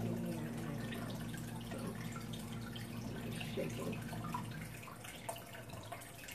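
Aquarium water trickling and dripping as a hand-held gravel vacuum siphons water from the tank, with small splashes and ticks from a hand working in the water. A low steady hum fades out about a second in, and the trickling grows quieter toward the end.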